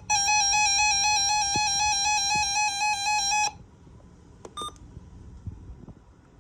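Weather radio receiver sounding its electronic alert tone: a loud, slightly warbling square-wave beep held for about three and a half seconds, then cut off, followed about a second later by one short higher beep.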